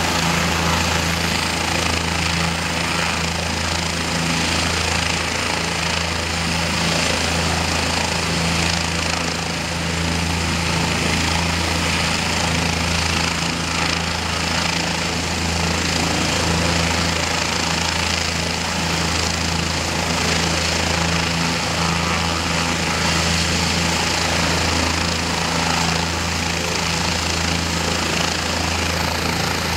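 Bell 206 helicopter running on the ground, its turbine engine and two-blade main rotor turning: a steady low drone with a hiss above it.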